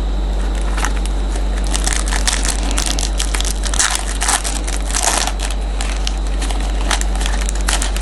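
Crinkling and crackling of a foil trading-card pack wrapper being torn open and the cards handled, in irregular bursts that are densest in the middle, over a steady electrical hum.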